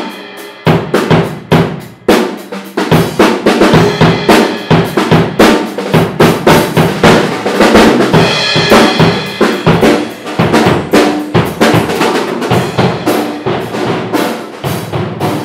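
Acoustic drum kit played hard and fast, with kick drum, snare and crashing cymbals, measured at about 100 decibels. It grows a little quieter near the end.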